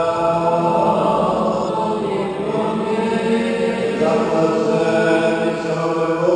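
Liturgical chant of a Byzantine-rite Ukrainian Catholic Mass: voices singing long held notes that step to a new pitch every second or so.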